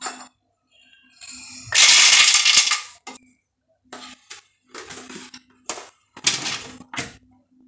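Shelled groundnuts (peanuts) poured into a plastic blender jar, rattling and clattering against the plastic, loudest about two seconds in, followed by several shorter clatters.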